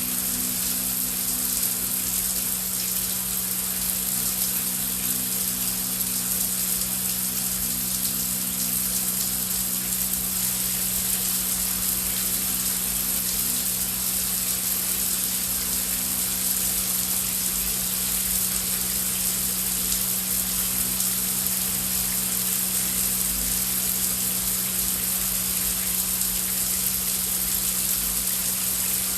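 Heavy rain falling in a steady, even hiss with no breaks. Underneath it runs a low, steady hum of a few held tones from the added background ambience.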